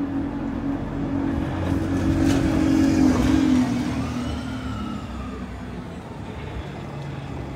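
A motor vehicle passing close by on a city street. Its engine note swells to a peak about three seconds in, then drops in pitch and fades as it moves away, over background traffic noise.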